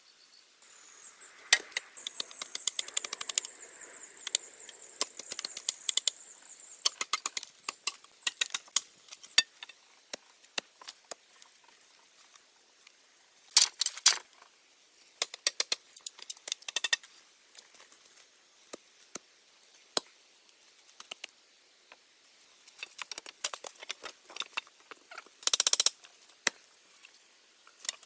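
Bamboo poles and sticks being handled, giving scattered dry knocks, clicks and rustles among dead leaves, with two louder clattering bursts, about halfway through and near the end. For the first few seconds a steady high thin tone and a soft hiss sit under the knocks.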